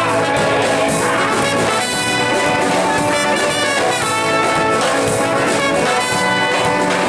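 Live band playing, with trumpet and saxophone carrying the tune over acoustic guitars, electric guitar and drums.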